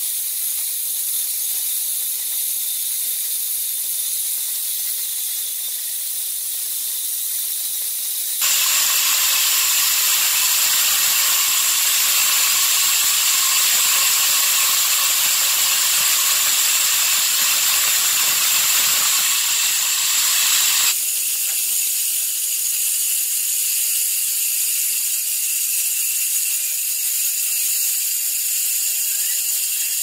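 Large horizontal band sawmill blade running and cutting through a big log, a steady high-pitched hiss. It grows louder with a high whine about eight seconds in, while the blade is deep in the wood and throwing sawdust, and eases back about twenty-one seconds in.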